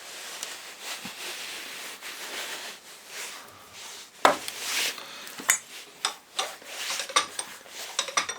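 Bench vise being wound tight on a starter solenoid with a socket pressing a part out: steady scraping and creaking, a sharp crack about four seconds in, then a run of metallic clicks and clinks.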